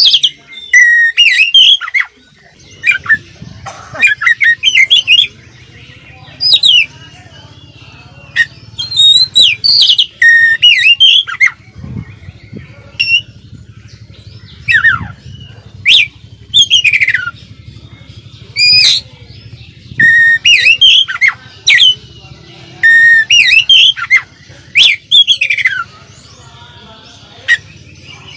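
Oriental magpie-robin singing vigorously: a varied, loud song of sharp falling whistles and quick trilled phrases, repeated with short pauses between them.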